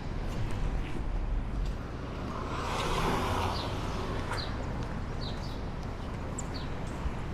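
City street traffic with a steady low rumble. A vehicle passes about three seconds in, its noise swelling and fading, while small birds give short chirps several times.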